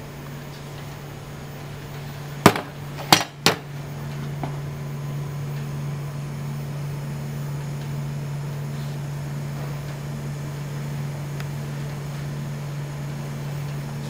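Three sharp metallic knocks in quick succession about two and a half seconds in, as foundry tongs and a crucible clank against a metal ingot mould, over a steady low machinery hum.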